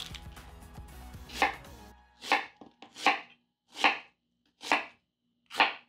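Chef's knife slicing a halved white onion on a bamboo cutting board: about six crisp cuts a little under a second apart, each ending in a knock of the blade on the board, starting about a second and a half in.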